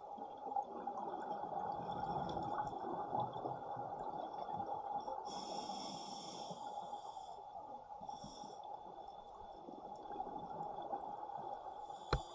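Scuba regulator breathing and exhaled bubbles underwater, with a brief higher hiss about five seconds in and a sharp click near the end.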